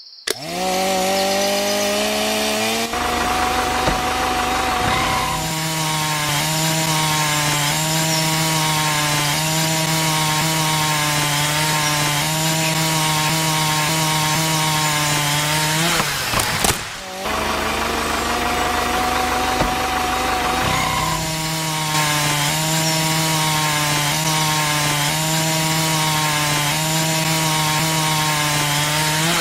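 Small motor-driven circular saw blade spinning up to a steady pitched whine within about a second, then cutting into wood, its pitch rising and falling regularly as the blade bites. It breaks off briefly about midway, and the same spin-up and cutting sound starts over.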